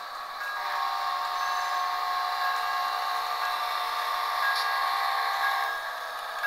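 Soundtraxx Tsunami sound decoder in a model F59PH locomotive playing diesel locomotive sounds through its small speaker, thin and without bass. A louder steady sound of several held tones comes in about half a second in and drops away near the end.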